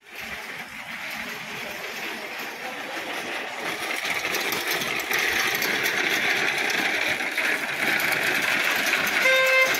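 A small motor vehicle's engine runs steadily and grows louder over several seconds. A horn honks briefly near the end.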